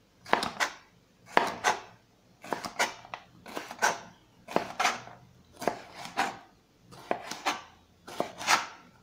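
Chef's knife slicing a green bell pepper into strips on a cutting board: paired strokes, the blade cutting through the flesh and meeting the board, about once a second.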